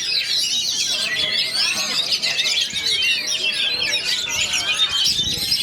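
Many Oriental magpie-robins singing at once in a contest line-up, a dense, continuous tangle of overlapping whistles, chirps and trills.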